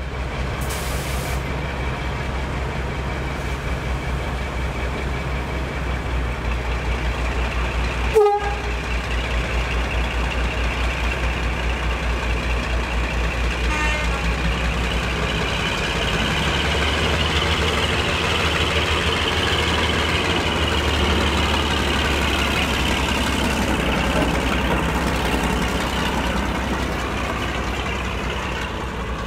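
Class 52 'Western' diesel-hydraulic locomotive D1062 running with a steady engine throb, with a short horn toot about eight seconds in. The engine grows louder from about sixteen seconds in.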